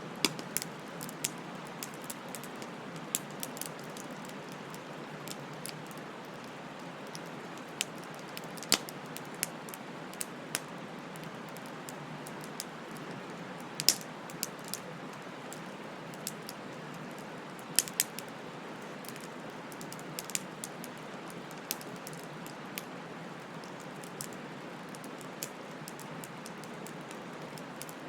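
Wood fire crackling: irregular sharp pops and snaps over a steady hiss of burning, with a few louder snaps standing out around the middle.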